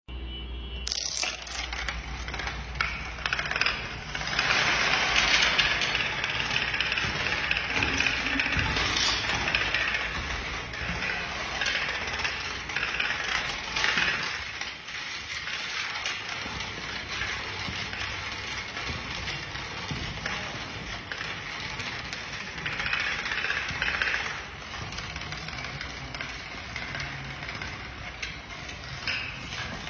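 A long run of dominoes toppling: a continuous rapid clatter of tiles knocking into one another, swelling louder at times as more of them fall together.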